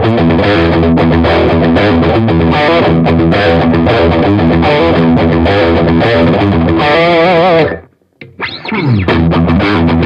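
Squier Affinity Jazzmaster electric guitar played through a Fender Champion 50XL amp: continuous chords and riffs. About seven seconds in a held note wavers with vibrato, then the playing cuts off suddenly to near silence. A falling glide in pitch follows before the playing resumes.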